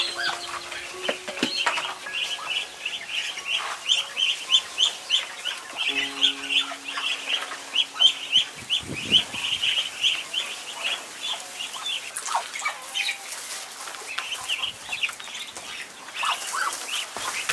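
A flock of ducklings peeping, a rapid, continuous high chattering of many short calls.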